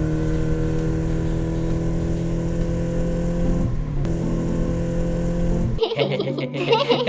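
A motor vehicle's engine running steadily over a low rumble. It cuts off about six seconds in, and a choppy jumble of higher sounds follows.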